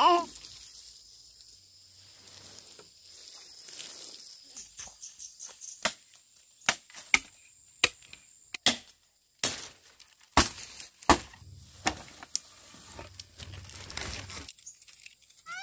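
Firewood being broken up: a string of sharp, irregular cracks and knocks of wood, roughly one every second, the loudest in the middle.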